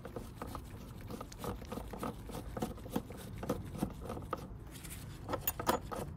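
Hand socket ratchet clicking in short, irregular runs while undoing a bolt on a car's air filter housing, the clicks coming thicker near the end.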